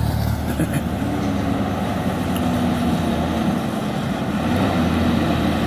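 Steady low engine hum and road noise of a vehicle on the move.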